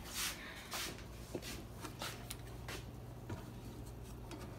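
Plastic slotted spoon scraping and scooping browned ground beef and sausage in an electric skillet: a series of soft scrapes and rustles that die away in the second half.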